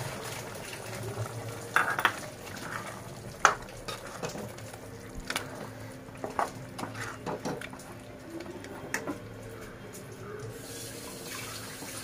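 A metal ladle stirring thick chicken curry in a pressure cooker: irregular scrapes and knocks of the ladle against the pot, with the gravy sloshing.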